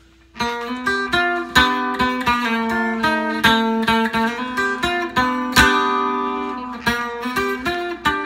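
Supro White Holiday electric guitar played through its piezo pickup to give a Dobro-like resonator twang: picked single notes and double stops in a steady pattern over a ringing low note, starting about half a second in.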